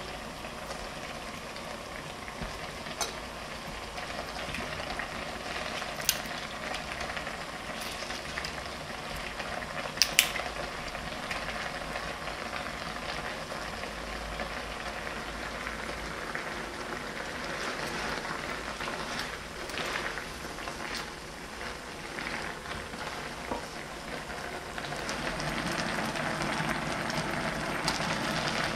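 Spicy red rice-cake sauce simmering and bubbling in a pan, with a few sharp clicks in the first half. Near the end the bubbling gets louder and fuller as it comes to a rolling boil.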